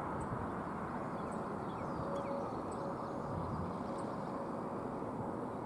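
Distant rumble of an approaching CSX freight train's diesel locomotives, steady and even. Faint high ticks repeat every second or so above it.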